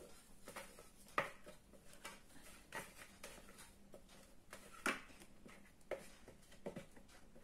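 Faint, scattered light knocks and taps, about five in all, as the mixing bowl is handled and tilted over a metal cake tin while cake batter is poured in; the batter itself is nearly silent, leaving quiet room tone between the taps.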